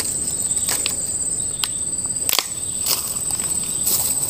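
Insects trilling in a steady high-pitched drone, with several sharp clicks scattered through it, the loudest about halfway through.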